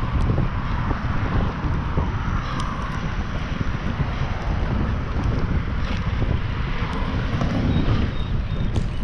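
Wind buffeting the microphone of a GoPro Hero7 action camera on a moving bicycle: a steady, heavy low rumble with hiss above it, and a few faint ticks.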